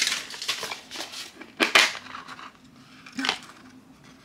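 Hard plastic blind-box cube being opened by hand: rustling handling noise at first, then a sharp plastic click about a second and a half in and a softer click about three seconds in.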